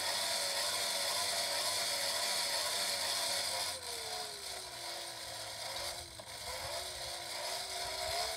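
Hand-crank forge blower being cranked, its gears whirring with a steady whine. About three and a half seconds in the cranking slows, and the whine drops in pitch and gets quieter.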